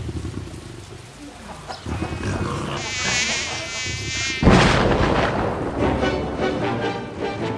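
Mosquito buzzing, a thin whine that wavers in pitch, from about three seconds in. About four and a half seconds in it is cut off by a loud thump, and music follows.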